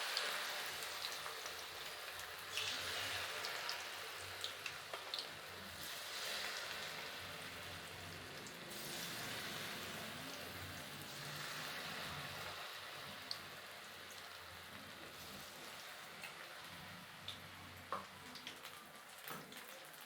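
Batter-coated broccoli florets deep-frying in hot oil: a steady sizzle with scattered small crackles and pops, swelling louder several times.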